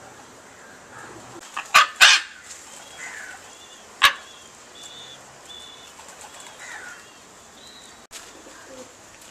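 Three short, loud, harsh sounds: two close together about two seconds in and one about four seconds in. Faint, high chirps of small birds repeat in the background.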